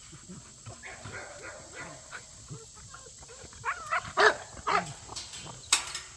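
A dog barking: faint, scattered sounds at first, then several loud, short barks in the second half.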